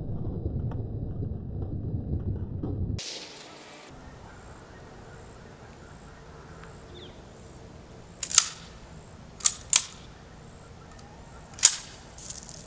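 A low rushing noise that cuts off abruptly about three seconds in, then a handful of short, sharp cracks: one about eight seconds in, two in quick succession a second later, and another strong one near the end.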